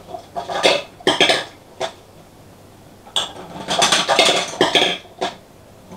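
Hard plastic marble-run toy pieces and balls clattering. There are two bursts of quick clicks and rattles, a short one about a second in and a longer one from about three to five seconds in, with single clicks between and after.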